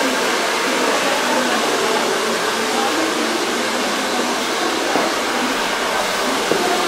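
Hand-held hair dryer running, a steady airy whoosh, with faint background chatter underneath.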